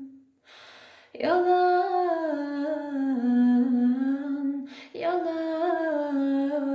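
A woman singing alone, unaccompanied, in Turkish. A breath comes about half a second in, then a long held note that wavers for over three seconds. After another quick breath she sings a second long note on the word "yalan".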